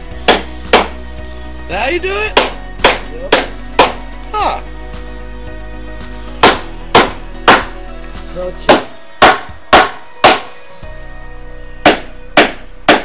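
Hammer driving nails into wooden deck framing: sharp, ringing strikes in quick runs of two to four, about two a second, with short pauses between runs. A steady low hum underneath cuts out about nine seconds in.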